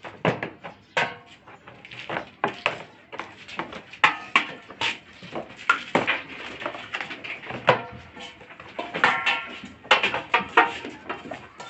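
Steel bowl and metal tub knocking and clanking irregularly as two goat kids feed from them and push them about, one standing in the tub.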